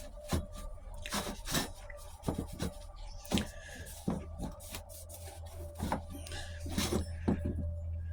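Metal automatic-transmission parts being handled and set down on a workbench: irregular clinks and knocks with some scraping.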